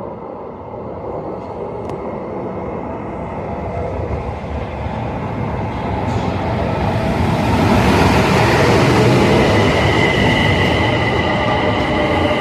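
Interurban train rolling on its rails, growing louder as it approaches and loudest about eight seconds in, with a steady high-pitched whine that comes in during the second half.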